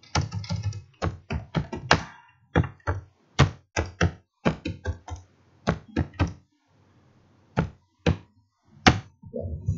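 Typing on a computer keyboard: a quick run of keystrokes, then slower, sparser key taps with a short pause about two-thirds of the way through.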